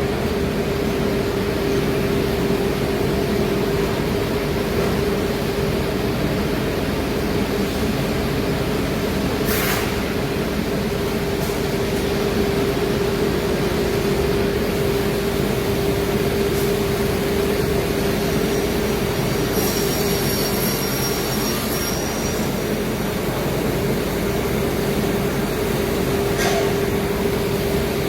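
CNC machine running as it cuts plywood: a steady whine over continuous machine noise, with two brief sharp clicks, about ten seconds in and near the end.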